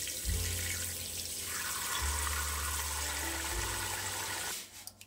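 Kitchen faucet running a stream of water into a stainless steel stockpot, filling it; the flow cuts off near the end.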